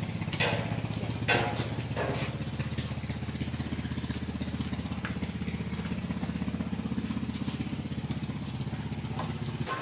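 Small motorcycle engine idling steadily with a low, even pulse.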